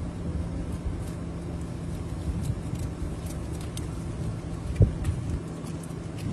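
Steady low hum of an idling vehicle engine under wind rumble on the microphone, with faint ticks and rustles of flag fabric against the pole-mounted camera. A single sharp knock comes about five seconds in.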